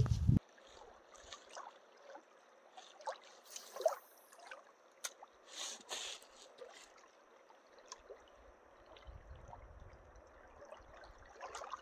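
Small ripples lapping softly at a lake's pebbly shore, with scattered little splashes.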